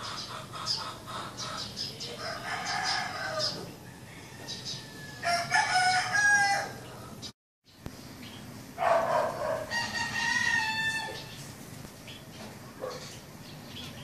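Roosters crowing, three long crows over the span, with the loudest two coming one after the other in the middle, while small birds chirp in the background. The sound cuts out completely for a moment between the two loud crows.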